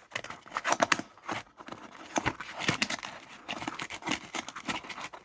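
Parcel packaging being torn and crinkled open by hand: a run of irregular ripping and crackling noises.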